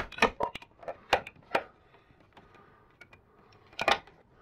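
Sharp plastic clicks and snaps as a mini-blind headrail is worked out of its end bracket: several clicks in the first second and a half, then a louder click near the end.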